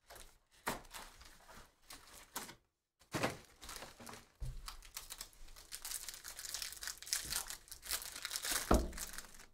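Foil-wrapped trading-card packs handled and set down, then a foil pack crinkling and tearing open in the hands. There is a thump near the end.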